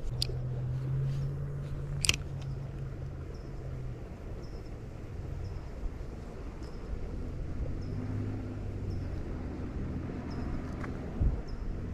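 Distant engine hum, steady for the first few seconds, then fading and coming back with a different pitch later on. Over it a spinning reel's handle is cranked, giving faint ticks less than a second apart, with a sharp click about two seconds in.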